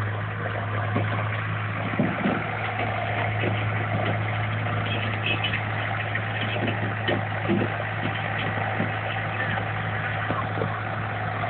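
Skid steer engine running steadily, with scattered knocks and clanks, the strongest about two seconds in.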